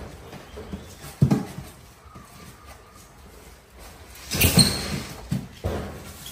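A monkey's short squeaks and calls: a few brief sounds, the loudest and shrillest about four seconds in.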